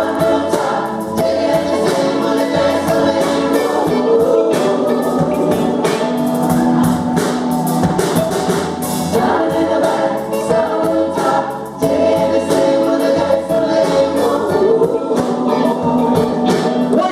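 Music: a choir singing over a band with a steady beat of percussion.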